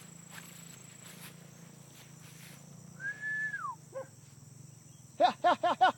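Beagles baying while running a rabbit: four short, high yelping barks in quick succession near the end. About halfway through, a single drawn-out high note falls away at its end.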